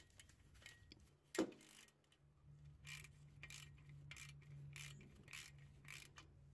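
Hand ratchet with a 13 mm socket loosening the battery-cable nut on a starter solenoid: one louder click about a second and a half in, then a run of faint ratchet clicks, a few strokes each second.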